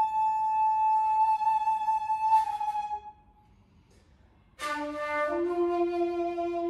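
Shakuhachi (end-blown bamboo flute) playing honkyoku. A long high note with a slight vibrato turns breathy and fades out. After a short pause, a low note enters with a breathy attack and steps up in pitch.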